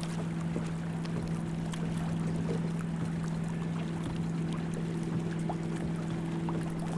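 Wind buffeting the microphone over choppy lake water, with small splashes and a steady low hum underneath.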